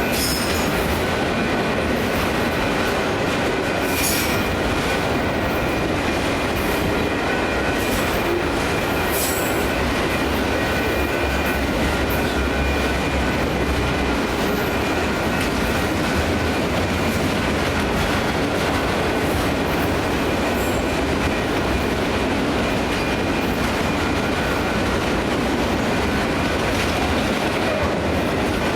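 Autorack freight cars rolling past at a grade crossing: a steady rumble and rattle of wheels on rail. A couple of brief clanks come about four and nine seconds in.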